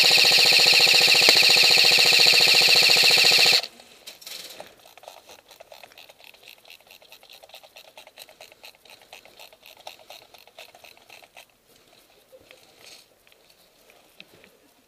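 Airsoft electric gun firing a long full-auto burst very close to the microphone: a rapid buzzing rattle that stops abruptly about three and a half seconds in. Fainter automatic airsoft fire keeps rattling until about three-quarters of the way through.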